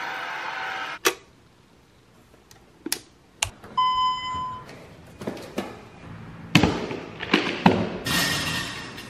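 Door latch clicks and knocks as doors are opened and passed through, with a single short electronic beep about four seconds in. The last few seconds hold thuds and the rustle of a plastic container being handled.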